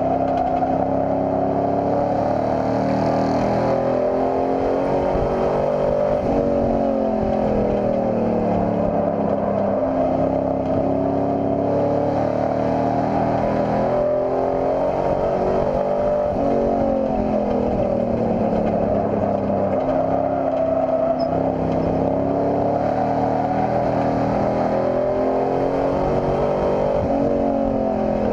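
Race pickup truck's engine heard from inside the cab during a race, running hard. Its pitch swings up and down over and over every few seconds as the truck accelerates and lifts off around the oval.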